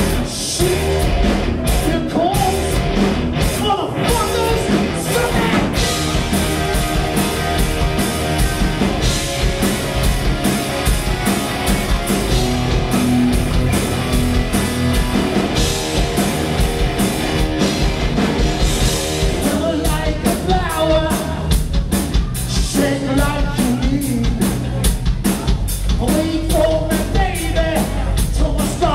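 Rock band playing live: electric guitar, bass guitar and drum kit, with a male vocalist singing over them.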